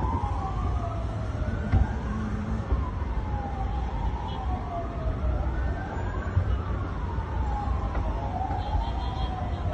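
Two or more emergency-vehicle sirens wailing together, each slowly rising and falling in pitch and out of step with the others, over a steady low rumble.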